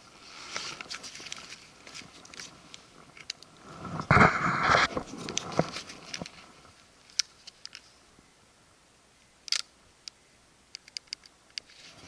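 Camera handling noise: fingers rubbing and knocking on the camera body, loudest in a brief rubbing burst about four seconds in, followed by scattered sharp clicks.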